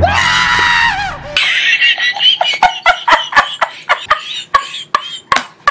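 A high-pitched drawn-out shriek, then a quick run of high giggling laughter, about four bursts a second.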